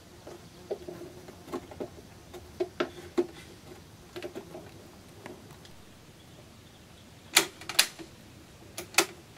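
Action of an 1898 Krag rifle being worked by hand: a string of light metallic clicks and rattles, then two pairs of sharper, louder clicks near the end.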